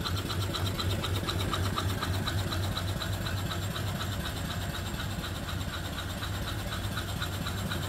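Reproduction 1880s-style steam engine (3-inch bore, 4-inch stroke) on a vertical boiler, running steadily: a low hum under a quick, even ticking. The owner calls it a very quiet running engine.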